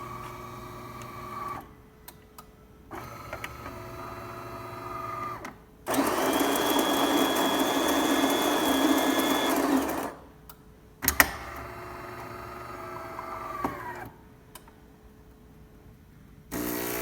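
DeLonghi Magnifica bean-to-cup espresso machine running a brew cycle: two short motor whirs, then the burr grinder grinding beans for about four seconds, another motor whir, and a brief pump buzz near the end. The grinder runs freely, no longer seized after the repair.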